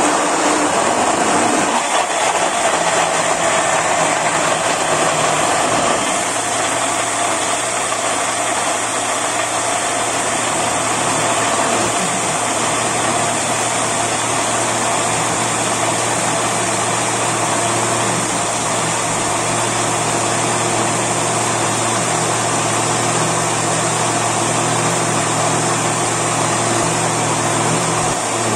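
Countertop blender motor running steadily, blending carrots with peach and ginger into a thick orange purée. About six seconds in the sound gets a little quieter and a steady low hum comes through.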